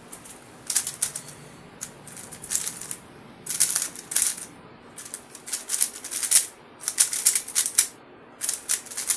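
Plastic speedcube being turned fast: rapid dry clacking and rattling of the MoYu WRM V10's layers in bursts of about a second, with short pauses between. The cube has not yet been lubricated.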